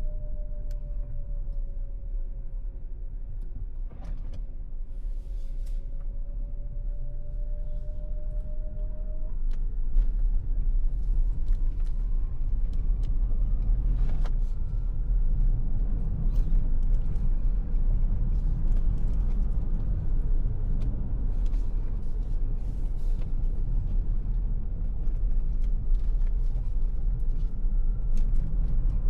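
Ford Territory hybrid SUV driving, a steady low road and tyre rumble with scattered small clicks and, for the first nine seconds or so, a faint steady tone.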